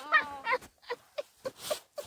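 A person's voice, not clear speech: a high gliding vocal sound near the start, then a string of short vocal sounds about three a second.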